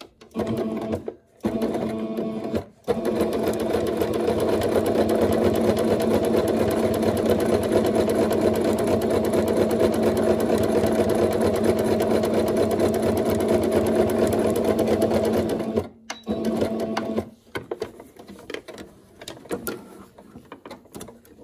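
Singer Starlet 6680 domestic sewing machine stitching a straight seam through thick dimensional fleece. It makes two short runs, then runs steadily for about thirteen seconds and stops. After one more short run there are only a few scattered light clicks.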